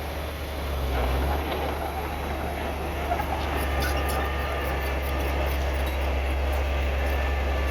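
Bulldozer's diesel engine running with a steady low drone, and light metallic clinking from its steel tracks from about three seconds in.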